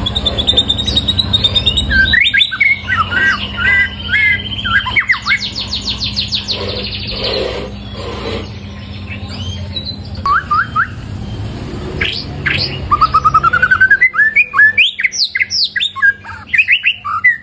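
Caged white-rumped shama singing loudly: a long, varied song of trills, whistled phrases and rapid sweeping notes, ear-splitting at close range, with its loudest, densest phrases near the end.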